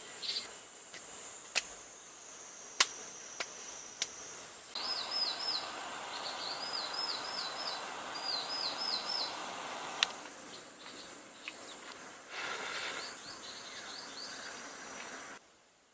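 Outdoor summer ambience: a steady high insect drone, with short runs of quick high chirps in the middle. A rush of noise runs from about five to ten seconds in. A few sharp clicks are scattered through.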